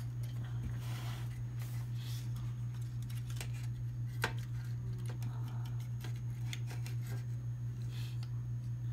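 A few small clicks and taps as a circuit board and its cable connectors are handled against a scanner's metal chassis, over a steady low hum.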